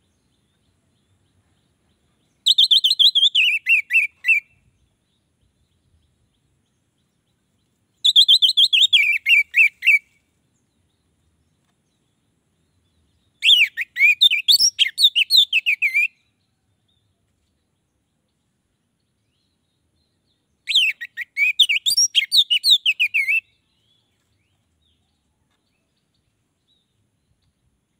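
Orange-headed thrush singing: four separate phrases of quick, high notes, each about two seconds long, with silent gaps between. The first two phrases step downward in pitch, and the last two are faster and more varied.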